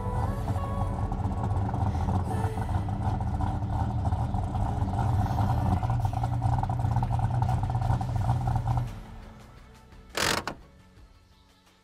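A classic muscle car's engine running steadily at low revs, then shut off about nine seconds in, its sound dying away. A short burst of noise follows about a second later.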